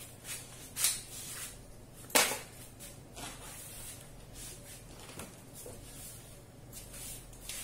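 Scattered soft clicks and rustles of a person moving about and handling small objects, with one sharper snap about two seconds in, over a faint room hum.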